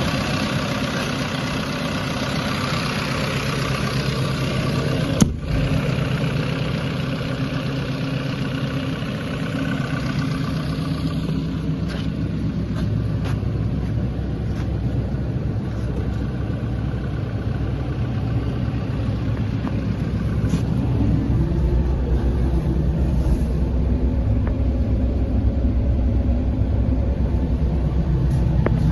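2017 JCB 86C-1 midi excavator's diesel engine running steadily, with a sharp click about five seconds in; the engine sound grows deeper and louder about two-thirds of the way through.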